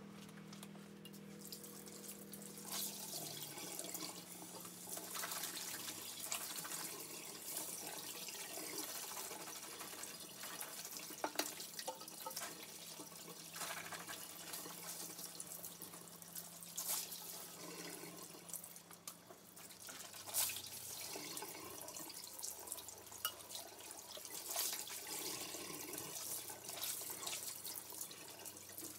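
Water running from a tap and splashing, with scattered light knocks and clinks throughout. A low hum fades out in the first few seconds.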